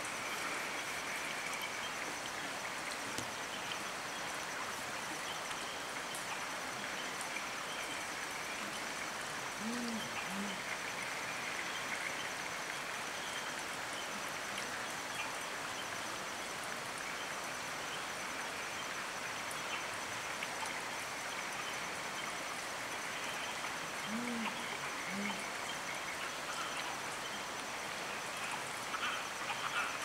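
Tawny fish owl hooting: a deep two-note hoot about ten seconds in, repeated about fourteen seconds later. Under it runs the steady rush of a stream and a high, steady chorus.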